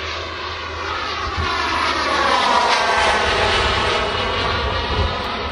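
Turbine engines of a large RC model DC-10 jet in flight, a steady jet whine and rush that grows louder, peaks about halfway through as the plane passes, then eases slightly.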